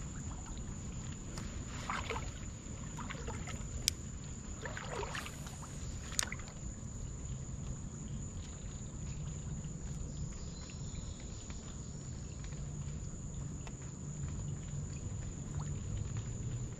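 Spinning rod and reel being cast and fished: two sharp clicks from the reel about four and six seconds in, over a steady low rumble.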